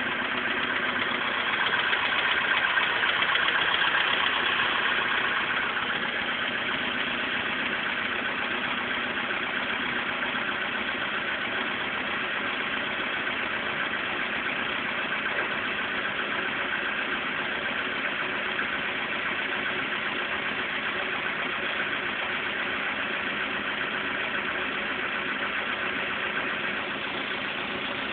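Volkswagen Polo Sedan engine idling with a knock, the knock its owner puts down to worn pistons that need the piston group replaced. It runs a little louder for a few seconds near the start, then settles to a steady idle.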